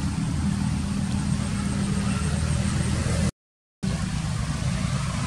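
Steady low rumble with no distinct events, cutting out completely for about half a second a little over three seconds in.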